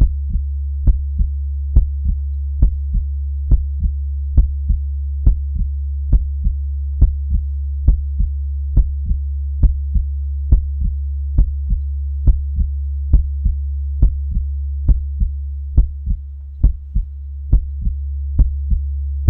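Heartbeat in a slow, steady lub-dub rhythm, a little more than one beat a second, each beat a pair of soft thumps. A steady low hum runs beneath it and briefly dips a little past the middle.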